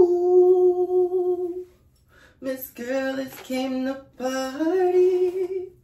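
A woman singing: one long held note, a short break about two seconds in, then a few shorter notes and a final note that rises and is held.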